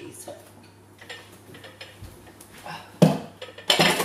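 Kitchen items being cleared off a worktop: faint clinks and rustles, then a sharp knock about three seconds in and a second, noisier clatter just before the end.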